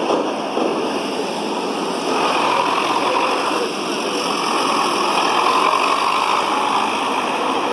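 Zetor 7211 tractor's four-cylinder diesel engine running steadily at low speed.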